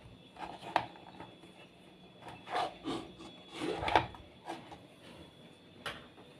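Irregular light knocks and scraping as hard objects are handled, busiest a couple of seconds in.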